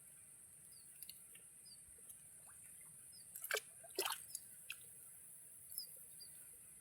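Faint small water drips and splashes, two of them louder about halfway through, with faint short high bird chirps now and then.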